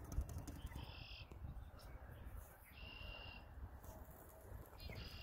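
Faint outdoor ambience: three short, high, steady-pitched bird calls, about one, three and five seconds in, over a low wind rumble on the microphone.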